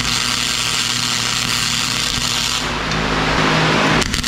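Flux-core wire-feed welder crackling steadily as it lays a bead, welding an engine-mount bracket onto the frame rail.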